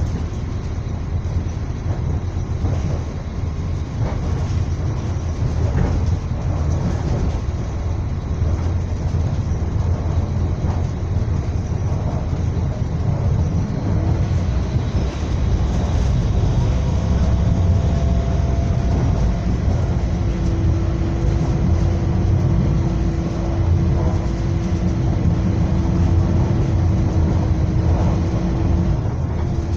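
A moving train's steady rumble, heard from inside a passenger car. A steady hum joins about two-thirds of the way through and stops just before the end.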